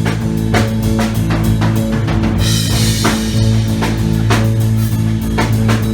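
Live improvised rock band playing: heavy drum kit hitting a steady beat about twice a second over a sustained low droning bass and guitar.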